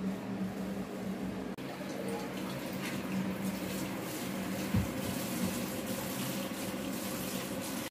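Running water hissing and splashing from about a second and a half in, over a steady low hum, with a single low thump near the middle.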